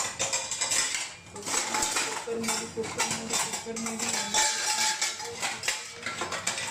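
Metal pots and utensils clinking and clattering in a string of irregular knocks.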